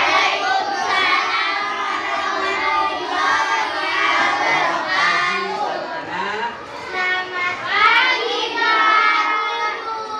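A class of schoolchildren singing together in loud, high voices.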